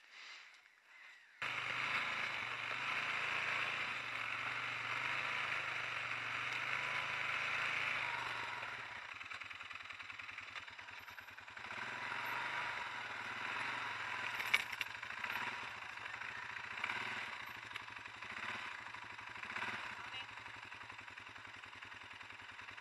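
ATV engine running steadily, starting abruptly a little over a second in, then running lower from about eight seconds in, with a few knocks and rattles.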